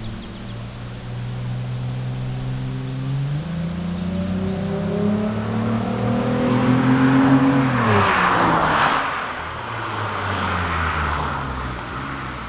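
Hyundai Tiburon GT's V6 through a Borla cat-back exhaust, accelerating toward the microphone with its engine note climbing steadily in pitch and loudness. About eight seconds in it passes at its loudest, and the note drops sharply. It then fades as the car drives away.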